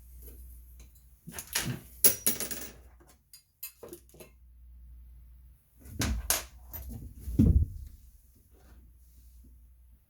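Clicks, knocks and clatter of small hardware and tools being handled: a trim cap pressed onto the shower valve, and screws and washers picked up. The knocks come in two clusters, the louder about 2 s in and again around 6 to 7.5 s in.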